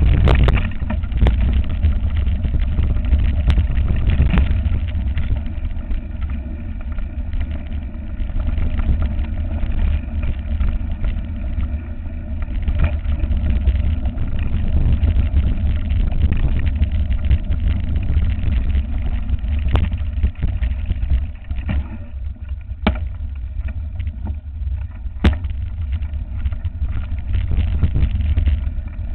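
Mountain bike rolling over a loose, rocky dirt track, with heavy wind buffeting on the bike-mounted camera's microphone and the tyres crunching and rattling over stones. A few sharp clicks from stones or the bike's frame stand out near the end.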